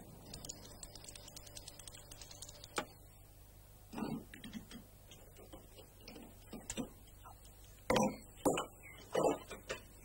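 Old petrol pump ticking quickly for the first few seconds while fuel is dispensed, then metal clunks from the fuel nozzle being handled and hung back on the pump: one about four seconds in and three louder knocks near the end.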